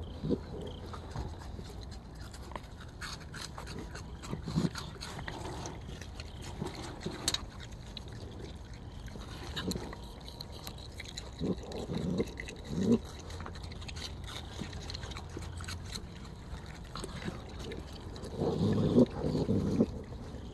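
A raccoon drinking and dabbling at a bucket of water: scattered small splashes, slurps and knocks, with a louder bout near the end.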